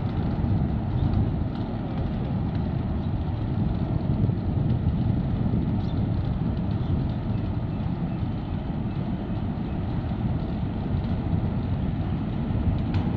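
Steady low rumbling noise of wind buffeting the microphone, with no distinct engine tone.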